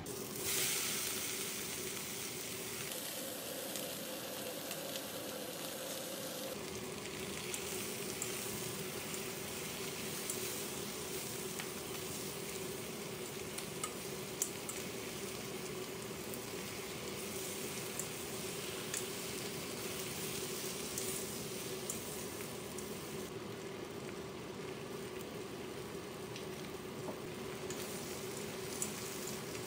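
Bok choy sizzling steadily as it is stir-fried in a stainless steel pan, with scattered light clicks of chopsticks and a wooden spatula turning the leaves; the sizzle swells briefly about half a second in.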